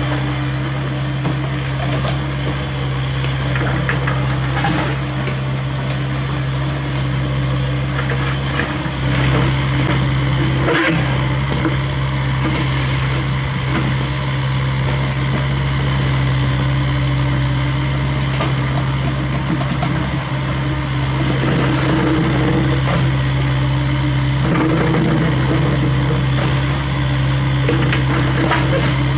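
Cat 307E2 mini excavator's diesel engine running steadily with a low drone, with a few scattered knocks.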